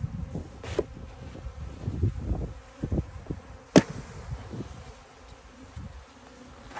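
A package of honeybees buzzing loudly around the microphone as they are shaken out of their plastic package box into a hive, single bees passing close with a rising and falling hum. Dull knocks from the box being shaken, and one sharp knock about four seconds in.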